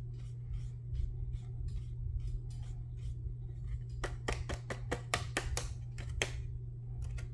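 Small paintbrush brushing excess embossing powder off cardstock: soft light strokes, with a quick run of sharper flicks against the paper between about four and six seconds in, over a steady low hum.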